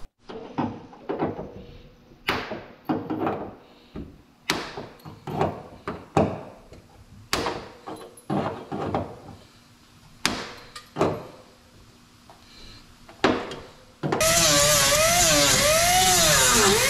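Pliers snipping off welded-on steel dent-pulling pins one at a time, sharp metallic clicks about once a second. About fourteen seconds in, an air-powered disc grinder starts grinding the pin stubs off the sheet-steel door, its whine wavering as it bites.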